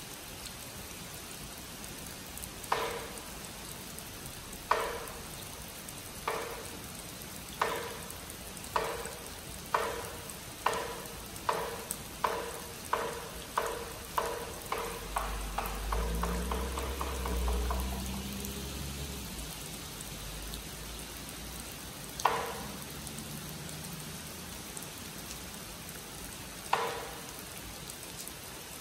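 Zen temple's wooden clapper struck with a mallet, the call to zazen: single knocks a couple of seconds apart that speed up into a fast roll and stop near the middle, then two more slow knocks begin again. Steady rain falls throughout, and a low rumble swells briefly in the middle.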